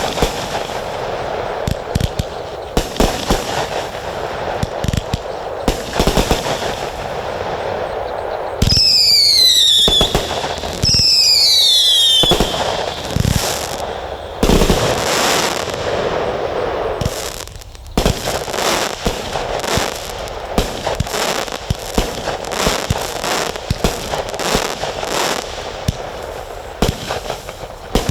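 Consumer fireworks firing in rapid succession: a dense run of sharp bangs over continuous crackling, with two falling whistling tones about nine and eleven seconds in.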